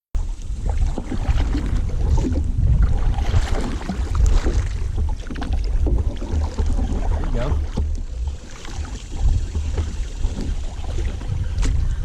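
Wind rumbling on the microphone out on the water, with irregular small knocks and splashes around a kayak.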